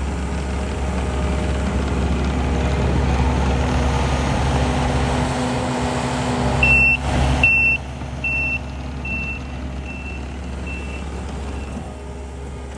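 Takeuchi skid steer's diesel engine running steadily. About halfway through, its reversing alarm sounds a series of evenly spaced high beeps that grow fainter.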